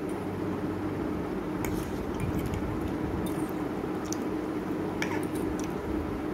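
Instant noodles being eaten with metal forks: a handful of short clicks of forks against ceramic plates, with chewing, over a steady low hum.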